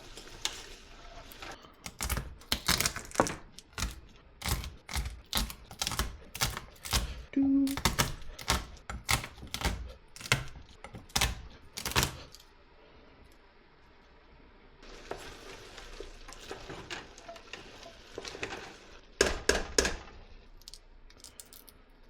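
Garlic cloves being broken apart and peeled for a sauce: a run of sharp knocks and clacks, two or three a second, for about ten seconds. Then a quieter stretch, and a short burst of knocks near the end.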